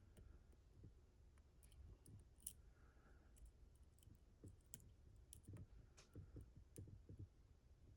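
Faint, irregular small clicks and scrapes of steel picks and a tension wrench working inside a Mottura CP6 dimple lock, feeling for its rotors and pins.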